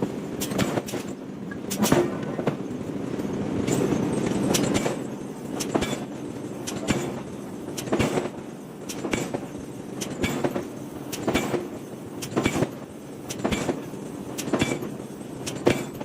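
Heavy metal blows on iron being forged, repeating at roughly one a second, over a steady machine hum.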